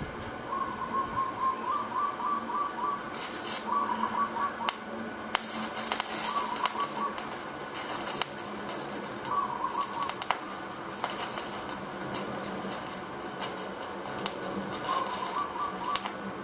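Irregular clicking, rattling and scraping of hand work on small metal parts, with bouts of hissy rasping from about three seconds in. A short run of rapid chirps comes back several times.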